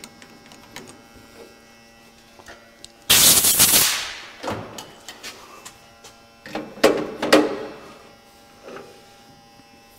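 Metal lathe stopped after parting off, with a steady low electrical hum. About three seconds in there is a roughly one-second rush of noise. Around six and a half to seven and a half seconds, several sharp metallic clicks and knocks come as the quick-change tool post handle is swung clear and the parted-off aluminium piece is taken off its catch rod by hand.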